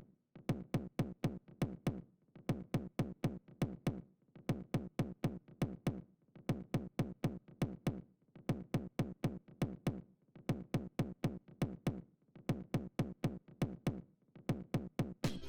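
Electronic music built on a drum-machine kick pattern: a run of quick drum hits, each dropping in pitch, broken by a short gap about every two seconds.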